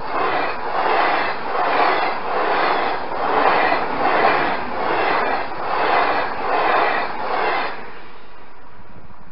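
SNCF Z 21500 (ZTER) electric multiple unit passing close by at speed over a level crossing. It makes a rushing rail noise that pulses in regular beats a little under a second apart, and it cuts off suddenly near the end as the last car clears.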